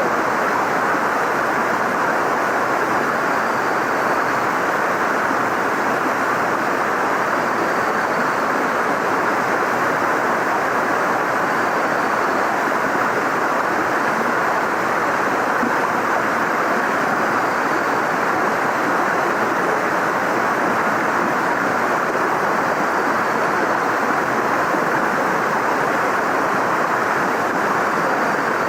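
Waterfall: a steady, unbroken rush of falling water. A bird's faint, short, falling high call repeats every four seconds or so above it.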